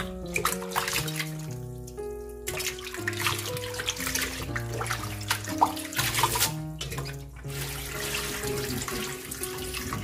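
Tap water running and splashing into a stainless steel bowl in a sink as blanched chives and enoki mushrooms are rinsed in cold water to cool them, loudest in the middle, over background music.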